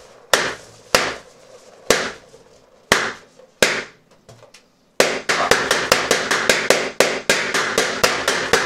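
Red latex balloons bursting with sharp bangs: five single pops about a second apart, then after a short pause a fast run of pops about four a second.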